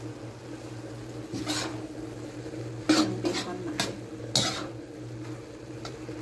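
A cooking utensil scraping and knocking against a wok as stir-fried noodles and vegetables are tossed and mixed, in about half a dozen separate strokes, the loudest about halfway through. A steady low hum runs underneath.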